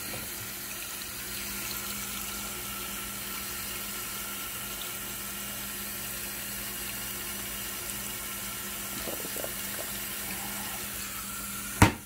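Water pouring from the inlet of a Giantex portable washing machine into the drum of clothes as it fills: a steady splashing rush with a low hum under it. Near the end comes one sharp clack as the machine's lid is shut.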